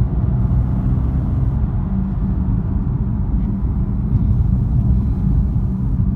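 BMW F80 M3 driving, giving a steady low rumble from its twin-turbo inline-six and the road, with no clear rise or fall in pitch.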